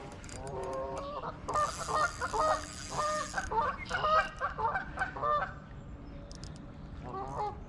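Geese honking: a quick run of repeated honks through the middle, then a few more near the end.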